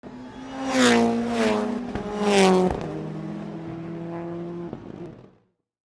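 Car engine revving as part of a logo intro sound, with two or three loud sweeps of noise in the first three seconds. It then settles into a steadier engine tone that cuts off suddenly a little after five seconds in.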